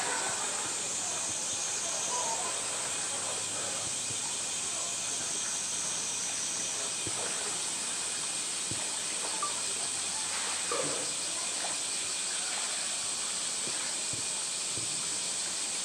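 Steady hiss of moving water in a pool, with a polar bear splashing as it swims and wrestles a blue plastic tank; splashes stand out at the start and again about eleven seconds in.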